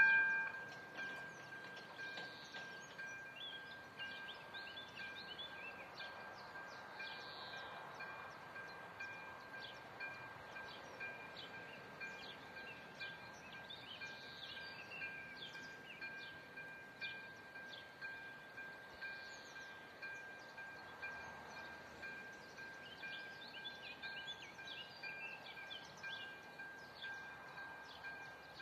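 Electronic level-crossing warning bell ringing with a steady high tone while the crossing's red lights flash, warning of an approaching train. Short high chirps sound over it throughout.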